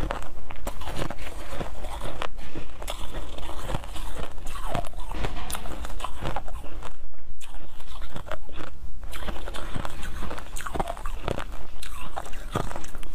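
Close-miked crunching and chewing of frozen milk ice, bite after bite, with a short lull a little past the middle.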